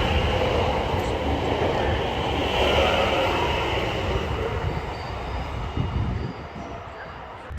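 A train running along the rails, a steady, loud rolling noise that fades away gradually over the last few seconds.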